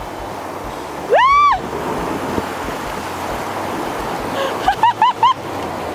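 Rushing creek water at a rapid, running steadily. About a second in, a person gives one loud cry that rises and falls in pitch, the loudest sound here; near the end come three short, high-pitched vocal cries in quick succession.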